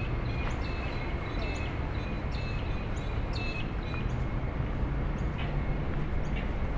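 Birds chirping in short, repeated calls, busiest in the first few seconds, over a steady low rumble of city traffic.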